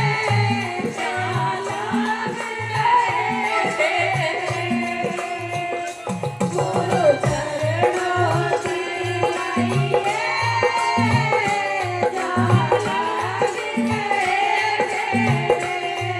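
Devotional folk song: a voice singing a bending melody over a steady beat of hand-drum strokes, with jingling or rattling percussion.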